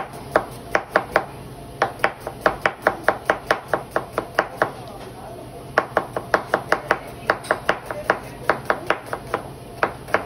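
Kitchen knife chopping food on a cutting board in quick, even strokes, about three to four a second, in runs broken by a short pause about halfway through.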